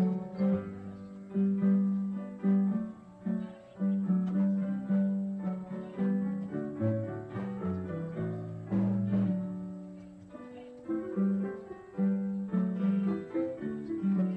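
Sped-up instrumental Christmas music, with notes that each start sharply and fade.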